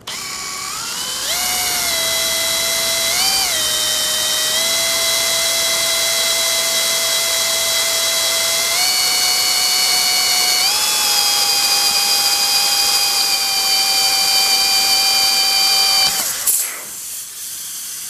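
Electric drill running under load as its bit cuts through the steel shell of a Tecumseh fridge compressor, a steady whine whose pitch steps up several times. About sixteen seconds in the drill stops as the bit breaks through, and nitrogen pressure inside the compressor starts to hiss out of the fresh hole.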